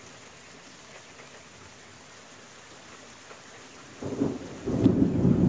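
Steady rain falling, then about four seconds in a close lightning strike's thunder breaks in: a sudden loud low rumble with a sharp crack, still rolling on at the end.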